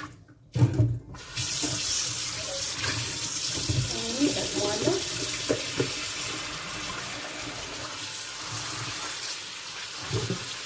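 Kitchen tap running steadily into a stainless steel bowl in a steel sink, starting just over a second in after a short clunk. Lettuce leaves are rinsed under the stream near the end.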